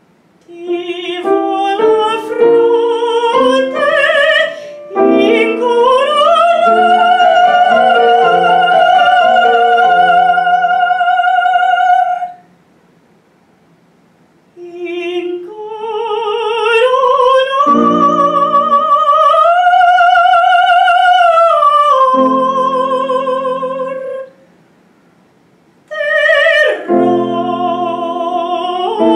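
A woman singing in operatic classical style with strong vibrato, over piano accompaniment. Her phrases rise to long held high notes, and twice everything stops for about two seconds.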